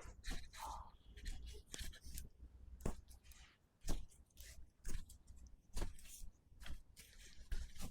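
Handling noises during a hands-on chiropractic treatment: rubbing and rustling of hands on the body and clothing, with short sharp clicks, the strongest coming about once a second from about three seconds in.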